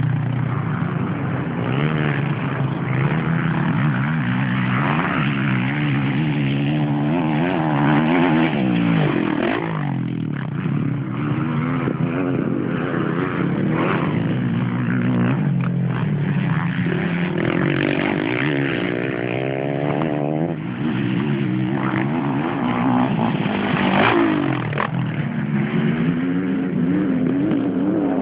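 Motocross dirt bikes revving and accelerating up a hillclimb, their engine pitch repeatedly rising and falling, at times with more than one engine heard at once.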